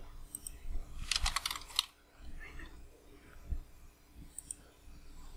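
Computer keyboard typing: a quick run of about seven or eight keystrokes about a second in, followed by a few fainter scattered clicks.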